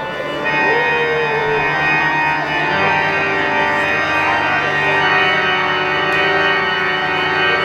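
Background music of sustained, organ-like keyboard chords, the bass note changing about three seconds in.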